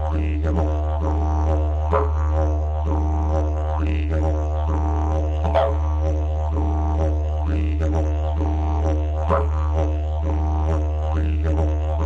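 Didgeridoo playing a continuous low drone, with a sweeping vowel-like swell about every two seconds.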